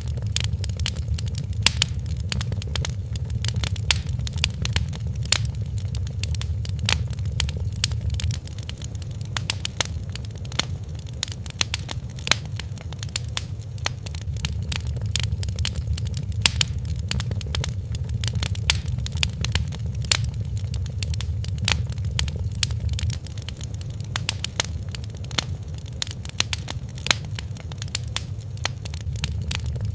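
Wood fire crackling, with frequent irregular sharp pops and snaps over a steady low rumble of flames.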